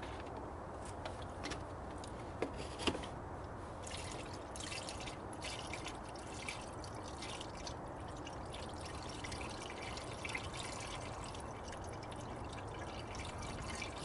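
Antifreeze being poured back into a car's radiator, a steady trickle of liquid into the filler neck. Two brief knocks come a little under three seconds in.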